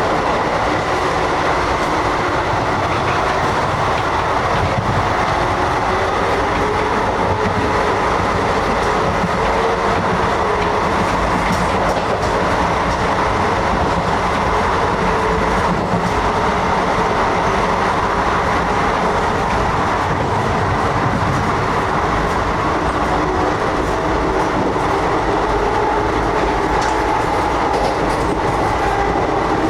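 Steady running noise heard inside an Indian Railways 2nd AC sleeper coach at speed: a continuous rumble and rattle of the wheels on the track.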